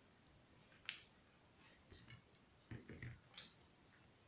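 Faint clicks and taps of small metal alloy bookmarks being handled and set down on a wooden table: one about a second in, then a quick cluster of several in the second half.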